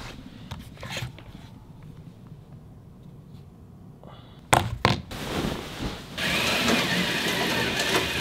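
Two sharp clicks, then a steady whirring hiss that starts about six seconds in: curtains sliding open along their track.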